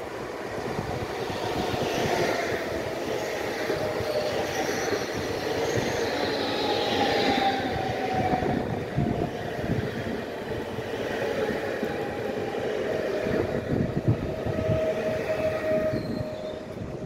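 Electric multiple-unit passenger train approaching and running past on the bridge track, its wheels rumbling and clattering over the rails, with a thin, steady whine that sinks slightly in pitch. It grows louder over the first couple of seconds and eases off near the end as the last car goes by.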